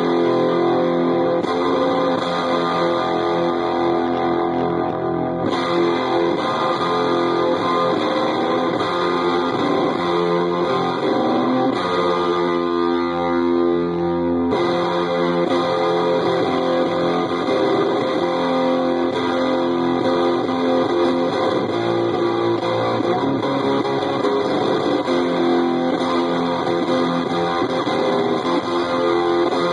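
Electric guitar played through a breadboard prototype dropout fuzz pedal, dropout stage only with no boost, into a Marshall JCM-style amp turned up until it is distorting a little. Held chords and notes ring; a little past the middle the treble thins out for a couple of seconds, then comes back.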